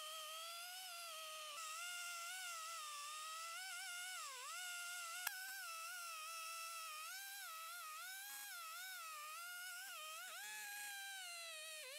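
Chainsaw engine running at high speed under load as it rips a maple log in an Alaskan chainsaw mill, its pitch wavering up and down and dipping briefly as the saw bogs in the cut and recovers. A single sharp click a little after the midpoint.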